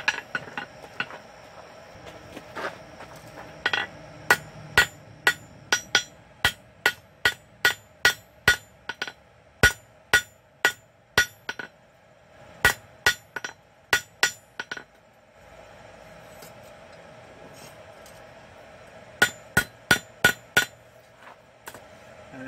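Blacksmith's hammer striking a hot steel bar on an anvil, about two blows a second, each followed by a short metallic ring. A long run of blows, a pause of a few seconds, then a quicker run of about six blows near the end.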